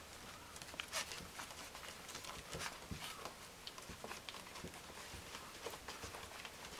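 Small puppies' paws and claws pattering and scrabbling on a wooden floor as they shuffle and push against each other, with many irregular light clicks.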